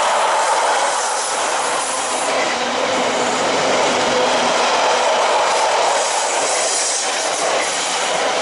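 Container freight train's loaded flat wagons rolling past close by: a loud, steady rumble and rattle of steel wheels on the rails, with a thin squealing tone from the wheels.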